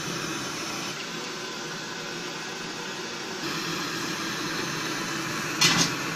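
Gas stove burner hissing steadily under a kadai of oil that is heating up for deep-frying. About five and a half seconds in there is a short, sharp double clatter.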